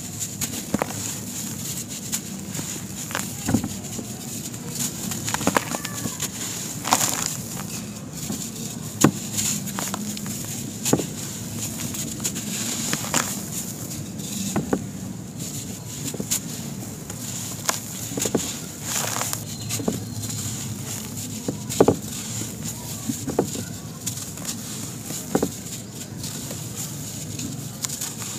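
Dry sand-cement mix squeezed and crumbled by hand: irregular crisp crunches and crackles as the compacted lumps break, over a steady gritty hiss of loose sand running through the fingers.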